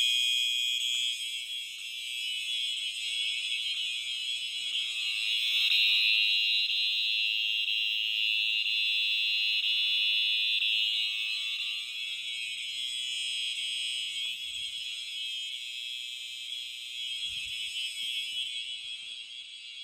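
Fire alarm horns on a test panel sounding together in one continuous shrill tone, with no break or pattern, after the pull station has been pulled.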